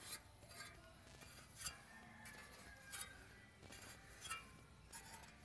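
Near silence with a handful of faint metallic clinks, about one a second, as a loosened fan clutch is turned off its threads by hand.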